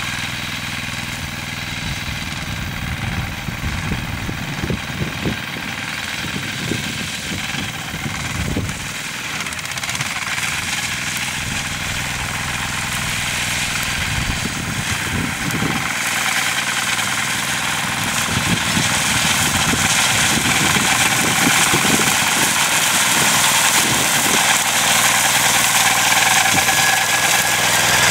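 Walk-behind tractor's engine running steadily while it drives a rotary mower through tall grass, growing gradually louder as the machine comes closer.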